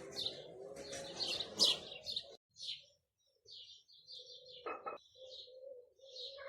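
Small birds chirping and twittering outdoors, thickly at first, then more sparsely after a brief drop-out just past the midpoint, with a steady low tone underneath in the second half.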